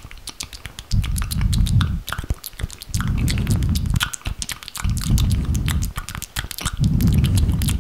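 Fast-cut ASMR trigger sounds close to the microphone: a rapid run of sharp clicks and taps, broken four times by a dull low rubbing that lasts about a second each time.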